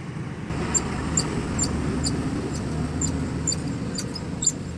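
Hand primer on a JCB diesel fuel filter head being pumped by hand, squeaking and clicking about twice a second, priming the fuel system after a filter change. A low rumble runs underneath.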